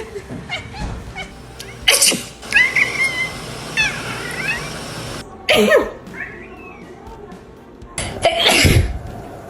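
A person sneezing sharply three times, about two, five and a half and eight seconds in, with a cat meowing in between.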